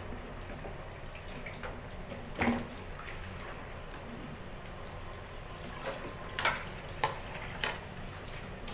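A metal ladle scooping through a pan of hot, simmering chicken broth, the liquid sloshing and dripping as cooked chicken pieces are lifted out. It knocks sharply against the pan once about two and a half seconds in, and a few more times past the middle.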